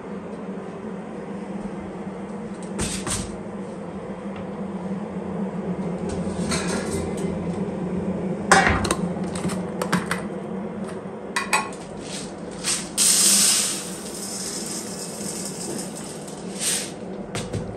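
Kitchen handling of a plastic jar of dry green lentils and a stainless steel bowl: scattered clicks and knocks of the jar and its lid on the counter. About two thirds of the way through comes a rush of dry lentils pouring into the metal bowl, lasting about a second, all over a steady low hum.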